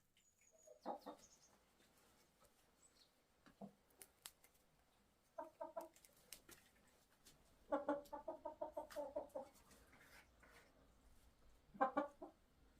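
Chicken clucking in short runs of quick, repeated notes, the longest run a little over halfway through, with faint scattered clicks between the runs.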